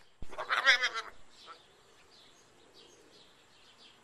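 A goat bleats once, a short wavering call of under a second, followed by faint bird chirps.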